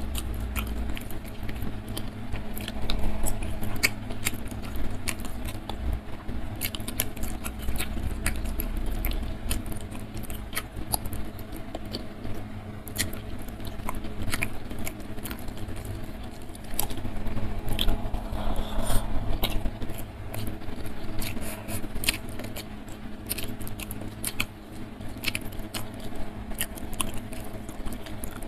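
Close-miked eating sounds: fingers squishing and mixing rice with sambal on a wooden board, and chewing with wet mouth clicks. Many small irregular clicks and crackles sit over a steady low hum.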